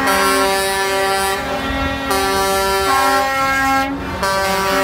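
Air horns of concrete mixer trucks blaring: several horns sounding together in long, overlapping blasts, with short breaks about a second and a half in and about four seconds in.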